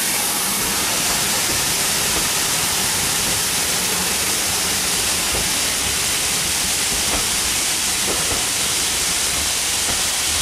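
Passenger coaches of a steam-hauled train rolling past close by, under a steady loud hiss, with a few faint clicks from the wheels near the middle.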